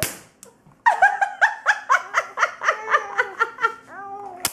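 Electric fly-swatter racket zapping a fly with a sharp crack, then someone laughing in a quick run of ha-ha's for about three seconds, and a second sharp crack of the racket at the very end.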